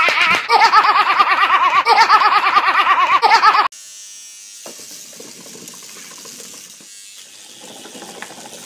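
A girl's loud, high-pitched laughter in rapid wavering peals, cutting off abruptly about three and a half seconds in. Then comes the much quieter buzz of an electric toothbrush brushing teeth.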